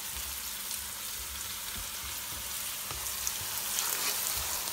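Chopped onions and green chillies sizzling steadily in hot oil in a nonstick wok. A spatula stirring them makes a few light knocks against the pan.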